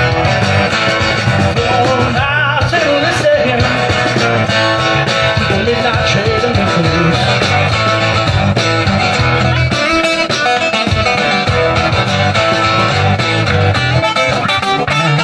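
Live band playing an instrumental passage on acoustic guitar, bass guitar and keyboard, with a moving bass line under the strummed and picked guitar.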